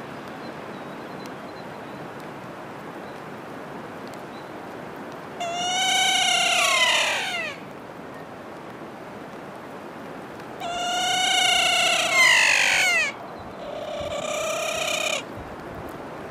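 Kea, New Zealand's alpine parrot, giving three long, drawn-out calls, the first two sliding down in pitch at the end and the third shorter and level. The calls come over a steady background hiss.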